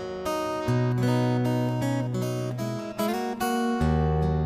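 Background music: acoustic guitar strumming chords, with a new strum about every second.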